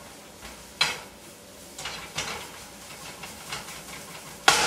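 A utensil stirring and scraping in a large frying pan of sautéing shredded carrots and onions, with a faint sizzle; a sharp knock about a second in, and a louder clatter against the pan near the end.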